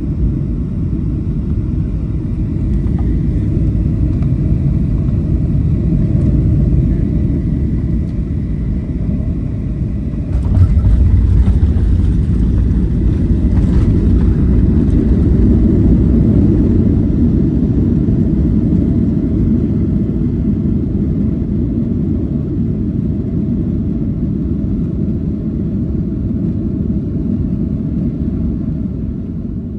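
Cabin rumble of a Boeing 737 landing. The steady engine and airflow noise of the final approach is broken by a thump and a sudden louder rumble at touchdown, about ten seconds in. The rollout rumble then slowly fades as the jet decelerates on the runway with its spoilers deployed.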